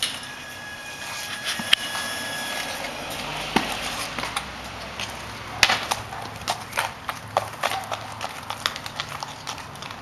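Hooves of a buckskin quarter horse gelding clip-clopping on concrete as it walks under a rider, the steps falling into a regular beat about halfway through. A faint high steady tone sounds in the first few seconds.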